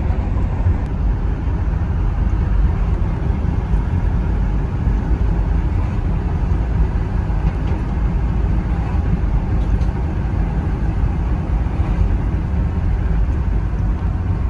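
Steady low rumble of road and engine noise inside the cabin of a Toyota Noah minivan as it drives along a bridge deck, unbroken and even throughout.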